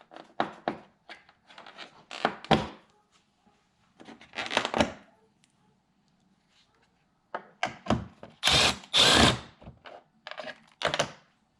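A cordless power driver spins out screws in short runs of about a second, twice. Between the runs come sharp clicks and knocks of tools and plastic parts as the engine's air intake is taken apart.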